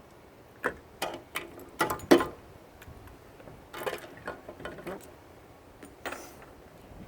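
Irregular clicks and light knocks of small metal motor parts and hand tools being handled while a shop vac's electric motor is taken apart, the loudest knock about two seconds in.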